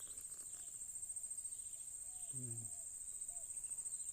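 Steady high-pitched insect chorus, with a brief low voice sound about two and a half seconds in.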